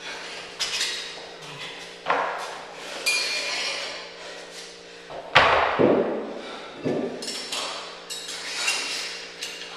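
Iron weight plates being slid on and off a barbell sleeve, clanking against the bar and each other: about half a dozen sharp metal knocks, some with a brief ring.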